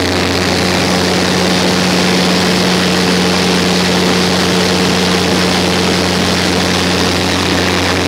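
Steady drone of a small propeller airliner's engines and propellers, heard inside the passenger cabin in flight: a loud, even hum with a strong low tone.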